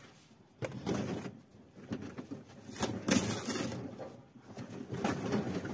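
Handling noise from unpacking a flat-packed rabbit cage: several bursts of rustling and scraping of its packaging and parts, the loudest about three seconds in.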